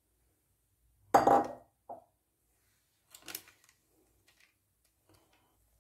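Kitchenware being handled: a loud clatter about a second in, a short tap just after, then a softer scraping sound around three seconds in as cake batter is worked in a baking tray.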